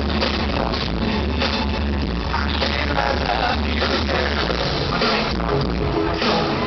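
Live pop music from a band over a concert PA, heard from within the audience: a steady beat with heavy bass that eases off about five seconds in.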